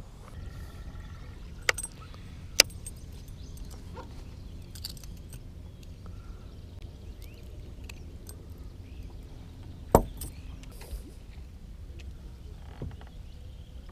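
Small metal clicks and clinks of a fishing snap swivel and lure hardware being handled by hand during a lure change: a few sharp clicks over a steady low rumble.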